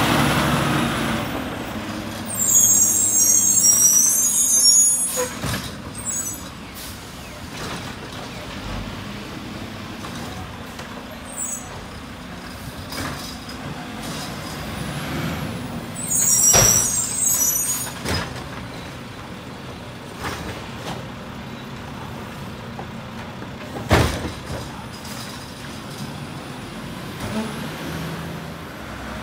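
Mack LR garbage truck's diesel engine running steadily at low revs, with two sharp hisses of air brakes about three and seventeen seconds in. Several hard knocks come from the rear loading, the sharpest about twenty-four seconds in.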